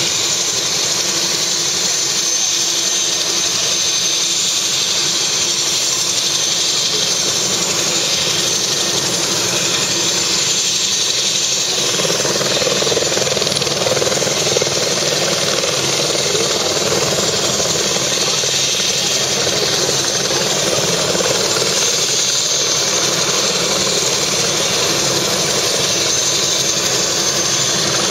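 Helicopter running on the ground with its rotor turning, a steady loud engine hiss and whine. About twelve seconds in, a lower hum comes up and stays under it.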